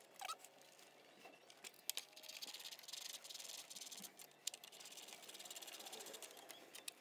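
Faint, rapid clicking of a ratchet wrench as it runs down the power steering reservoir's 10 mm mounting bolts, with a few sharper single clicks of the tool on metal.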